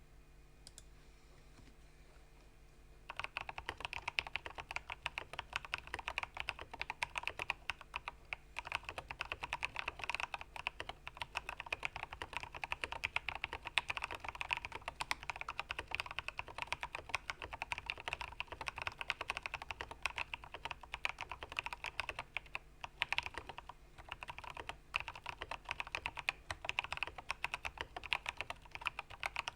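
Fast continuous typing on a Ramaworks Kara mechanical keyboard with lubed and filmed switches and internal dampeners. The typing starts about three seconds in after a near-quiet start, with a brief pause near the end.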